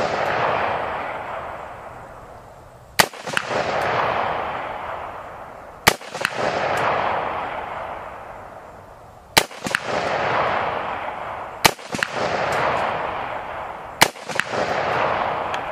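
Five single rifle shots from an AR-15 chambered in 7.62x39, spaced two to three and a half seconds apart. Each crack is followed a moment later by a faint clang of the bullet striking a steel silhouette target, then a long rolling echo that dies away over about two seconds.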